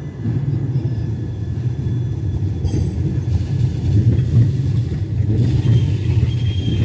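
Tram passing close by: a steady low rumble of wheels on rails that rises as it arrives, with a faint high whine near the end.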